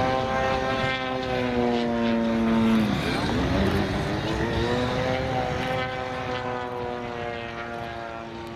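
Propeller-driven aircraft engine droning as it flies past. Its pitch slides slowly down, dips about three seconds in, rises again and then falls away, fading near the end.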